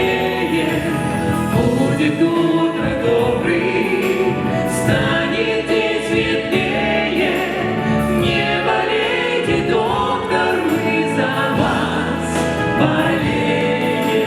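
Vocal ensemble singing in chorus with musical accompaniment.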